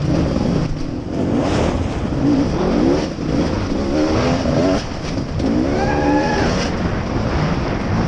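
Dirt bike engine running as the bike picks its way over rocky ground, revving up three times: about two, four and five and a half seconds in.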